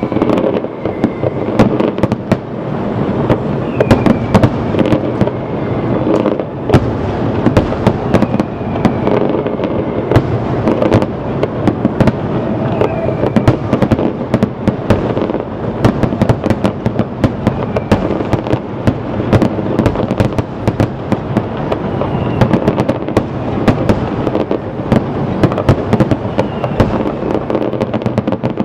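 Fireworks display: a continuous barrage of aerial shells bursting, with a steady rumble of booms and dense, rapid sharp reports and crackles.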